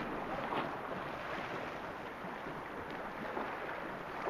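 Sea water lapping and rippling steadily around a drifting boat, with wind buffeting the microphone.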